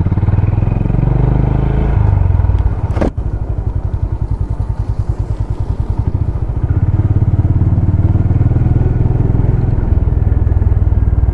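Honda CB350 RS's single-cylinder engine running as the motorcycle is ridden, with a steady pulsing beat. About three seconds in there is a sharp click and the engine note dips briefly before settling back to steady running.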